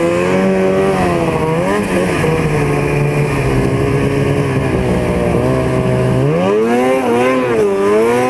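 Ski-Doo snowmobile engine running at a steady pace, then revving up and down in several quick swings from about six seconds in.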